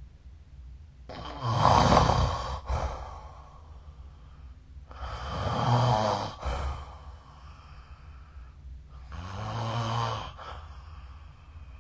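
A sleeping person snoring: three snores about four seconds apart, each lasting a second or two.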